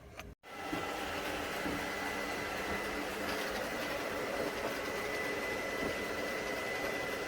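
ILIFE V5s Plus robot vacuum running: a steady motor whirr with a thin, constant high whine, cutting in abruptly after a short gap near the start.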